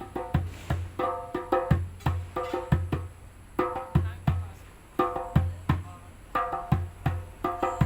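Live instrumental music: chords struck in a steady, rhythmic pattern with a low percussive thump under them, and no singing.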